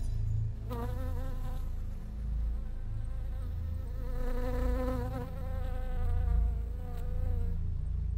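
Insect-like buzzing, wavering up and down in pitch, starting about a second in and stopping near the end, over a low rumble.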